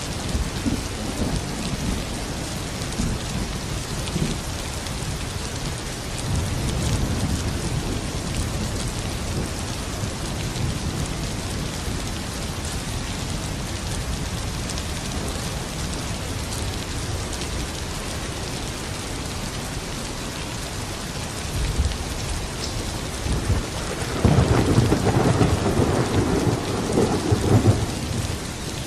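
Steady rain falling, with thunder rumbling low underneath; a louder roll of thunder swells near the end.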